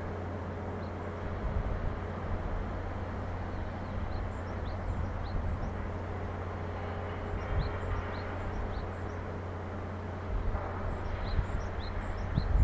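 Distant shipyard and harbour ambience: a steady low hum with irregular low rumbles, and scattered short, high chirps of small birds.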